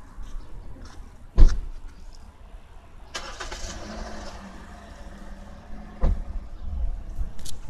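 A motor vehicle engine starting up, with a short hiss about three seconds in, then running with a steady low hum. Two sharp thumps stand out: the loudest about a second and a half in, another about six seconds in.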